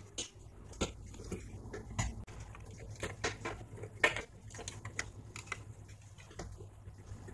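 Irregular clicks, taps and clatter of a small plastic radio's case and parts being handled and taken apart, several a second, with the sharpest knock about four seconds in, over a faint steady low hum.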